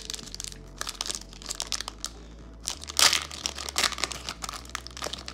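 A foil Pokémon booster-pack wrapper being torn open and crinkled by hand: a rapid, irregular string of crackles, loudest about three seconds in.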